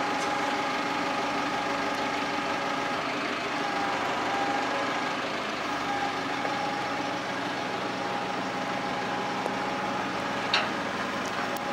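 Truck engine running steadily to power a lorry-mounted hydraulic loader crane as it lifts a load, a constant drone with a held whine. A short sharp knock about a second before the end.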